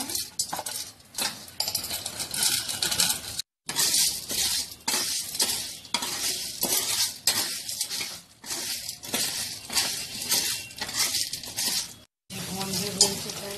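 Gond (edible gum) frying in hot ghee in a pan, a steady sizzle full of small crackles as the gum puffs, with a spoon stirring and clinking against the pan. The sound cuts out abruptly twice for a moment.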